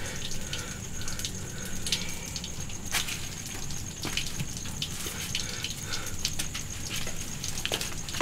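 Steady background room noise with a thin high whine and a few scattered light clicks and taps.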